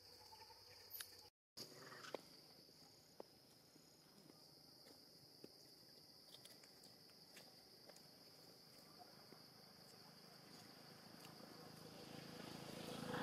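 Faint, steady high-pitched drone of insects, with a few small clicks and a brief gap about a second and a half in. A rushing noise swells near the end.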